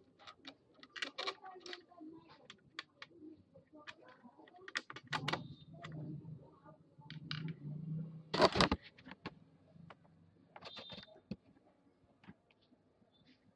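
Scattered small clicks and knocks of hard plastic parts and a screwdriver being handled as a Ricoh SP 111SU toner cartridge is reassembled and its spring fitted, with one louder knock past the middle.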